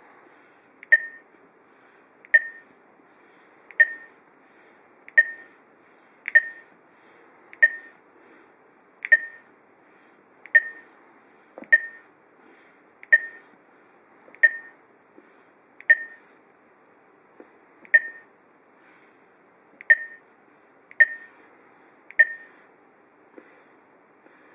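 A NAVITIME car navigation unit's touchscreen gives a short, high beep to confirm each key press as kana characters are typed into its search box. About sixteen beeps come, one every second or so.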